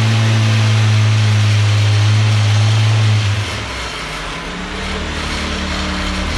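An engine running steadily at high speed, then dropping to a lower, quieter idle about three seconds in.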